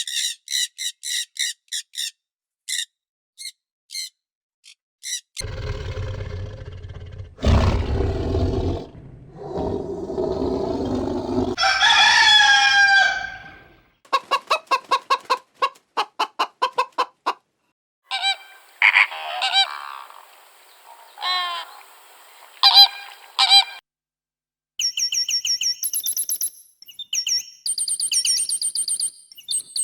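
Chickens calling in a series of short cuts: high thin peeps at the start and near the end, with clucking and a rooster crow in between.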